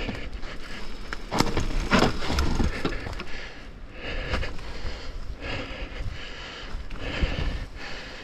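Mountain bike riding down a rough dirt trail: tyres on dirt and rocks, with the chain and frame rattling over bumps, a louder run of jolts a second or two in, and wind rumble on the mic.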